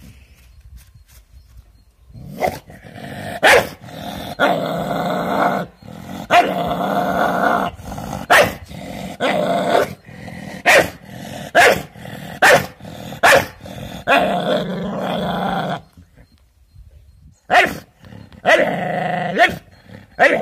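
A dog growling steadily and barking sharply, about once a second, at its own reflection in a mirror. It starts about two seconds in and breaks off briefly near the end before starting again.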